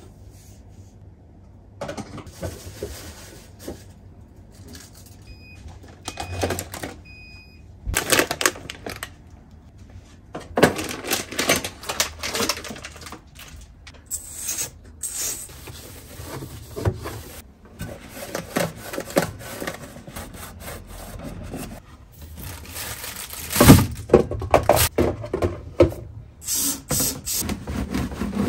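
Groceries being taken out of a refrigerator: bottles, jars and plastic tubs clinking and knocking against the shelves and each other, and packets rustling, in irregular bursts with one louder knock about two-thirds of the way through. Three short, faint beeps sound early on.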